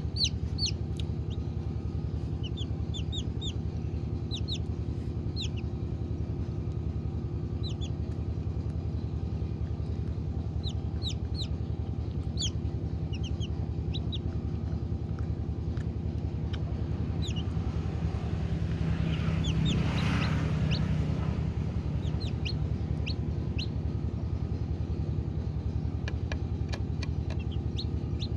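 Poultry peeping in many short, high, falling chirps over a steady low hum, with a brief louder rushing swell about twenty seconds in.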